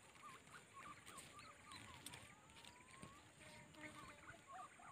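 Faint, scattered chirps and short whistled calls of several small birds over a low hiss, with no one call standing out.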